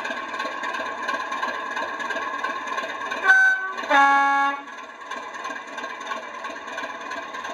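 Sound decoder of a model class 37 diesel locomotive (a converted Bachmann 37/9) playing its diesel engine idling through a small onboard speaker, with a two-tone horn about three seconds in: a short high note, then a longer low note. The engine sound carries on a little quieter after the horn.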